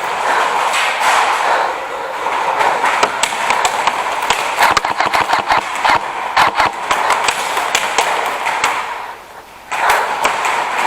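Airsoft guns firing in quick strings of sharp clicks, with a short lull about nine seconds in.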